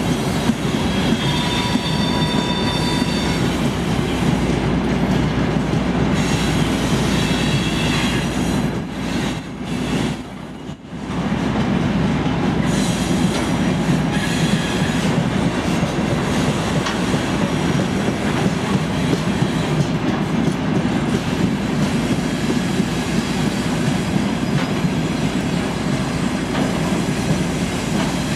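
TGM4 diesel-hydraulic shunting locomotive running as it hauls a freight train past, with the wagons rolling over the rails in a steady rumble. High wheel-squeal tones come in the first few seconds, and the sound dips briefly about ten seconds in.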